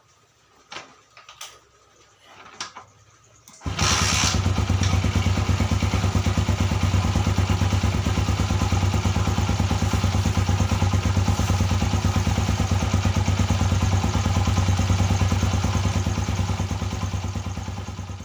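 A few clicks and knocks, then a Honda GL-series single-cylinder four-stroke motorcycle engine starts about four seconds in and idles steadily, tapering off near the end. It is being test-run after a repair on the left-side magnet (alternator) housing, which had been making a 'glok glok' knock.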